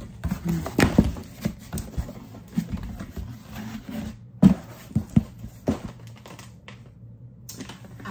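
Flaps of a large cardboard shipping box being handled and folded back: scattered knocks and scrapes of cardboard, with a few sharp clicks in the middle.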